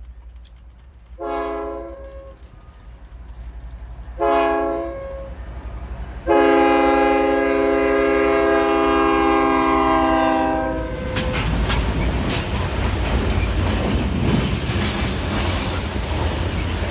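Diesel locomotive horn on an eastbound CN grain train: two short blasts, then one long blast of about four and a half seconds. Near the end of the long blast the lead locomotives pass close by, with loud engine rumble and the clatter of wheels on the rails.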